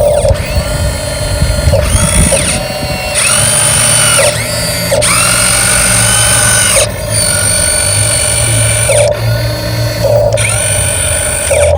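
RC dump truck's electric drive motor and gearbox whining in repeated spurts, the pitch gliding up as it speeds up and down as it eases off, about four or five times.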